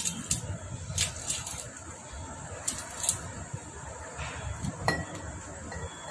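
Sharp metallic clicks and clinks, about seven, spread irregularly, from hands and tools handling the piston of a Honda Shine motorcycle engine during top-end reassembly, over a steady low background rumble.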